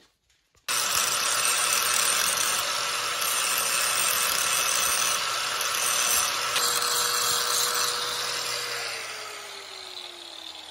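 Angle grinder with a grinding disc grinding down a TIG weld on a steel bandsaw blade; it starts abruptly about a second in, a loud grinding noise over a steady motor whine. Near the end the disc comes off the work and the whine falls as the motor spins down.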